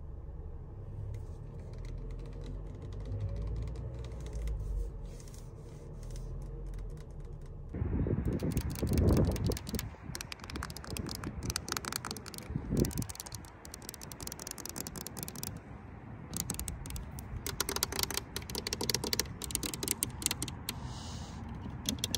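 Mercedes-Benz car engine idling in a steady low rumble heard from the cabin, with light tapping over it. About eight seconds in this gives way to quick, irregular fingernail tapping and scratching on the car's chrome door handle and painted door, with a few louder knocks.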